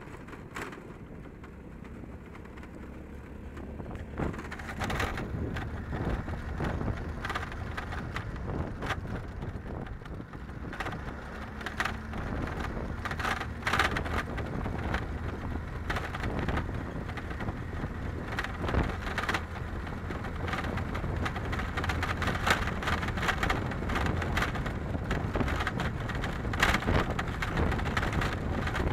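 Fire burning through vegetation and wood, with dense, irregular crackling and popping over a steady low rumble; the crackling grows busier and louder as it goes on.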